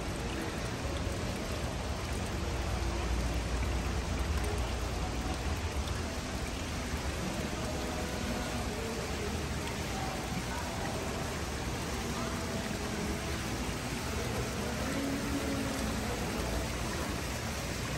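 Steady rushing of falling water, an even noise with no separate splashes or knocks.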